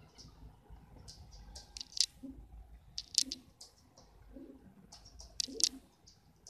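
Pigeon cooing softly in low calls repeated about once a second from about two seconds in, mixed with sharp clicks and taps of a pigeon walking and pecking on a wooden floor; the loudest taps come about two, three and five and a half seconds in.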